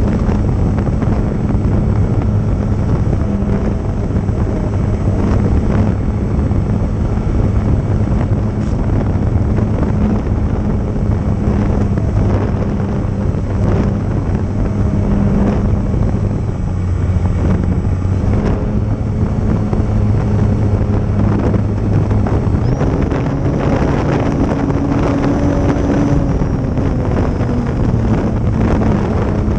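Wind buffeting the microphone over the steady hum of an RC plane's motor in flight. The motor's pitch rises about three-quarters of the way through and eases back down near the end.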